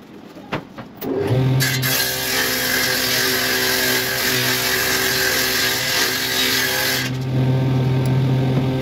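Bench table saw's motor starting about a second in and running with a steady hum. From soon after until near the end, the blade cuts through a wooden board, adding a loud hissing rasp over the hum; after the cut the saw keeps running freely.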